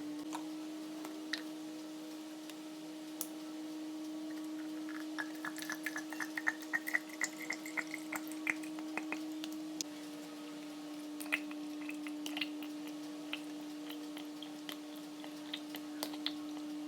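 Liquid pouring into a bottle in quick drips, the pitch rising as the bottle fills. Then scattered light clicks and taps, over a steady low hum.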